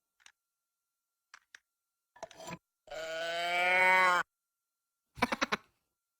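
Minion cartoon voice sound effects: a few faint short blips, then a long drawn-out vocal cry of over a second that swells louder and cuts off suddenly, followed by a short burst of gibberish chatter.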